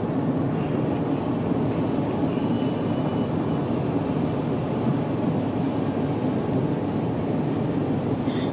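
Steady low rumbling background noise with no distinct events, like the inside of a moving vehicle.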